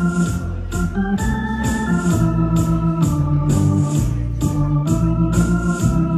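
Electronic keyboard playing a tango for couple dancing: organ-like held chords and melody over a bass line, with a steady beat of about two a second from the keyboard's rhythm accompaniment.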